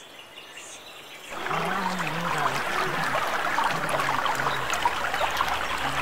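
Water trickling and splashing in a steady wash that sets in about a second in.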